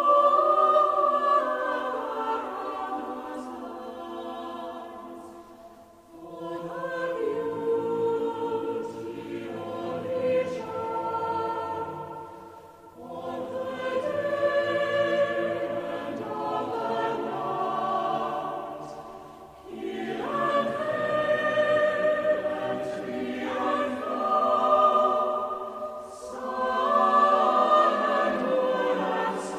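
Choir singing slow gospel music in long held phrases, each swelling and then fading every six or seven seconds.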